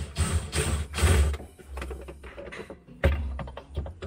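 DeWalt Atomic cordless drill/driver running against a plastic panel, driving a screw, loudest in the first second. Then a quieter stretch, then clicks and knocks of the tool and plastic being handled from about three seconds in.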